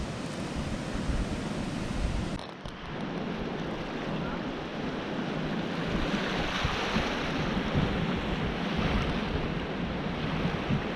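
Small lake waves washing onto a sandy beach, with wind gusting on the microphone.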